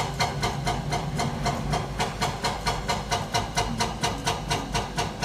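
Caterpillar excavator's crawler tracks clanking in a fast, even rhythm, about five or six clacks a second, over the steady hum of its diesel engine as it drives uphill.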